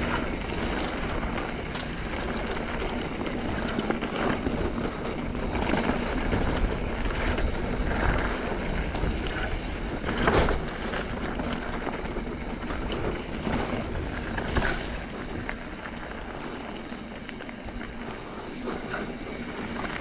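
Mountain bike descending a dirt singletrack: steady wind rush on the handlebar-mounted microphone over the tyres rolling on dirt and the bike rattling, with sharper knocks from bumps about ten and fifteen seconds in.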